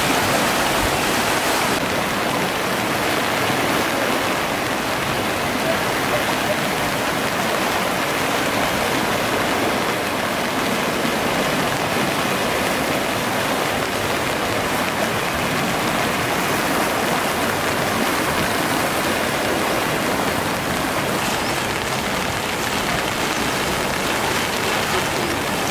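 Steady rush of the Geul river in flood, fast-moving floodwater surging along the house walls.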